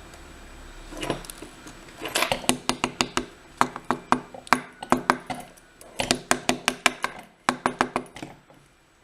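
Rapid clusters of small metallic clicks and clinks, several a second, from the pins, springs and tools of a disassembled pin-tumbler lock being handled. The clicks start about a second in and stop shortly before the end.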